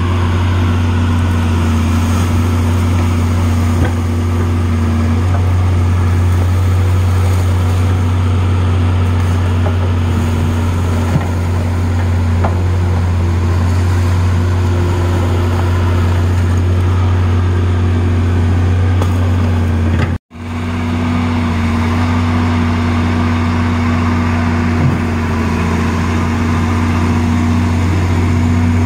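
Amphibex amphibious ice-breaking excavator's engine running steadily with a low hum while its hydraulic arm works the bucket through the river ice. The sound cuts out for a split second about twenty seconds in.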